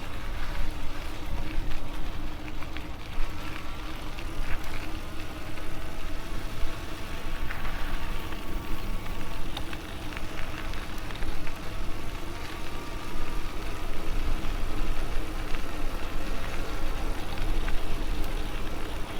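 MS2 Dual Sport Ultra e-bike in motion: steady low rumble of wind and tyres on the microphone, with the electric motor's faint whine drifting slightly in pitch.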